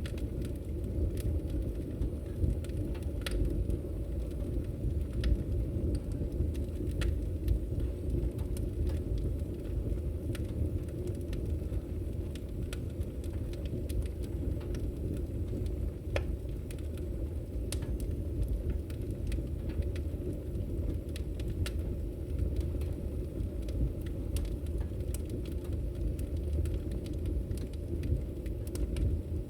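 Wood fire burning in a fireplace: a steady low rumble of flames with frequent, irregular sharp crackles and pops from the burning wood.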